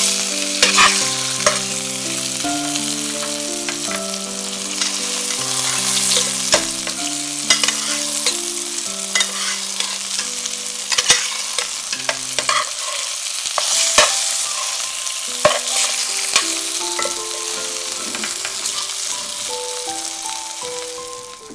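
Chicken breasts sizzling in hot oil in a stainless steel pan while being basted with a metal spoon, with occasional sharp clicks over the steady sizzle.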